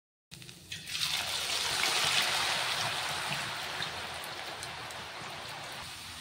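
Shredded potato deep-frying in hot oil in a steel kadai: the oil sizzles hard from about a second in, peaks around two seconds, then slowly eases to a steadier hiss as the frying settles.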